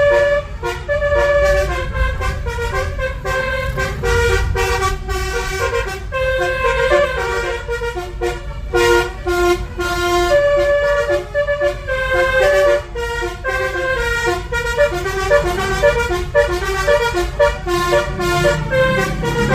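Telolet multi-tone horn driven by a Moreno MS8 melody module, playing a quick tune of short horn notes that jump from pitch to pitch, over a low rumble.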